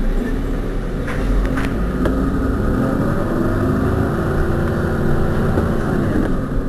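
Heuliez GX 127 city bus engine idling while the bus stands still, its pitch lifting slightly and settling back midway, with a few short clicks about a second in.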